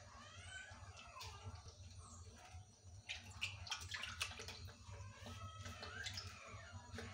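Shallow water splashing in a tub as live river crabs are poked with a stick, with a cluster of sharp clicks and taps about three to four seconds in.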